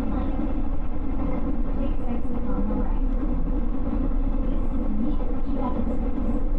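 JR West 221 series electric train running steadily along the track, heard on board: a continuous rumble of wheels on rails and running gear, with no sudden events.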